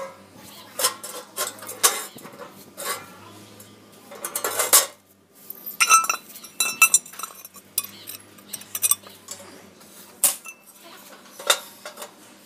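Steel parts clinking and knocking together as they are handled: locking pliers against a welded steel frame, and a metal tray being set into the frame. The result is an irregular string of sharp clanks, some ringing briefly.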